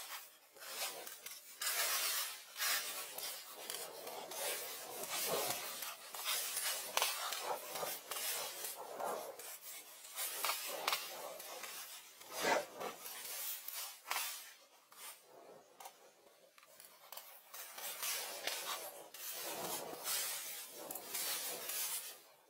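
Dry palm-leaf thatch rustling and scraping in irregular bursts as it is handled and pressed into place on a wooden roof frame.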